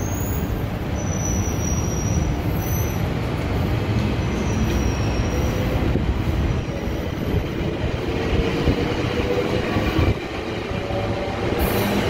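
GO Transit commuter train running with a steady rumble, its wheels squealing thinly on and off during the first few seconds. Near the end a low engine tone comes in and rises slightly in pitch.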